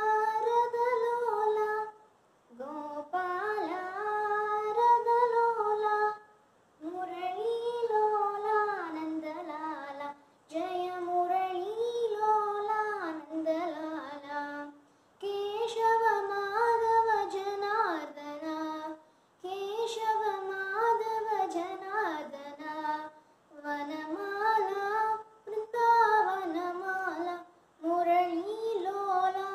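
A young girl singing a Hindu devotional bhajan to Krishna, unaccompanied. She sings in phrases a few seconds long, with short breaks for breath between them.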